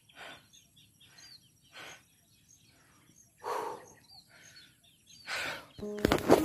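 Small birds chirping over and over in short, high calls, with four soft rushes of air on the microphone. Music comes in near the end.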